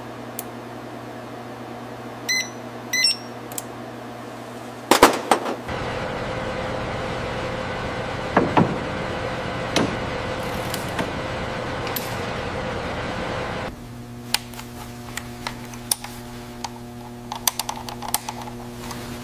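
Factory workshop sounds. Over a steady hum, two short double beeps from a digital multimeter, then a few sharp metal knocks. A louder steady machinery noise with a held hum follows and cuts off suddenly, leaving a quieter hum with scattered light tool clicks.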